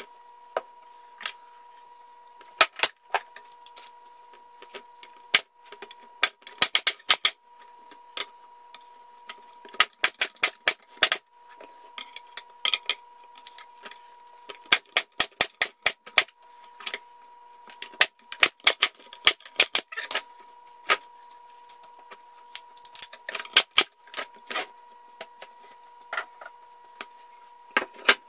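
Pneumatic staple gun firing again and again into a wooden beehive cover, sharp clicks in quick irregular runs, fixing the glued rim strips to the plywood. A faint steady hum runs underneath.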